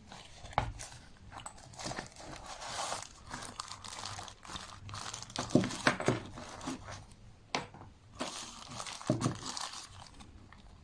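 Packaging being handled during unboxing: irregular rustling and crinkling, with a few sharp knocks and clicks as items are moved about.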